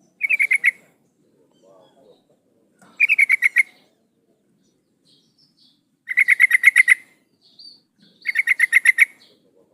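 Yellow-vented bulbul (trucukan) calling: four short rapid runs of repeated chattering notes, about two to three seconds apart, uploaded as the female's call used to draw out and stir up males.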